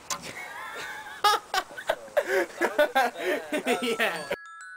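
Young people laughing and shouting in loud bursts. The sound cuts off suddenly near the end, and a few soft chime notes come in.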